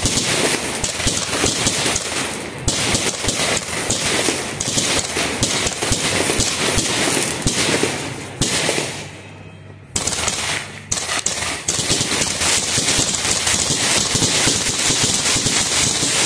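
Firework compound cake firing: rapid pops and bangs in quick succession, with crackling stars. It goes quiet briefly just past halfway, then resumes as dense, continuous crackling.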